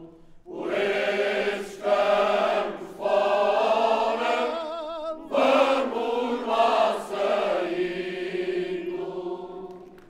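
Cante Alentejano sung a cappella by a large crowd of men and women together, a slow melody in several long held phrases with brief breaths between them; the last note fades out near the end.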